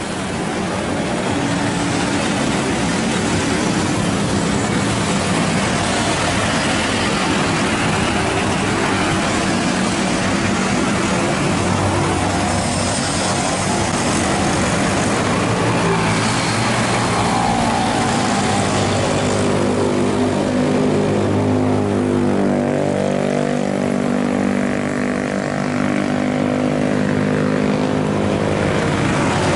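Motorcycle engine running at road speed under a heavy wash of wind and road noise. Its note rises and falls repeatedly in the second half as the speed changes.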